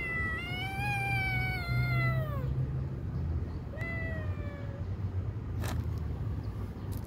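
Kitten crying in fear of a larger cat: one long, high-pitched cry that falls away at its end, then a second, shorter cry about four seconds in. A steady low rumble lies underneath.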